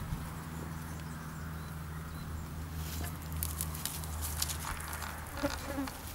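Ewe grazing close by, cropping grass in a run of small tearing clicks from about halfway in, with two short, soft, low sheep calls near the end.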